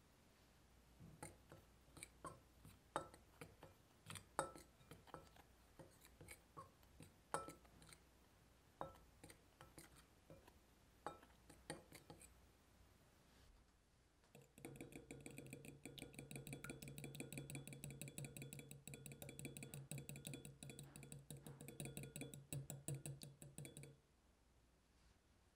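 A metal spoon stirring flour and yeast in a glass mixing bowl, with scattered light clinks against the glass. About halfway through, a fork beats an egg in a small glass bowl: fast, even strokes tapping the glass with a ringing tone, stopping shortly before the end.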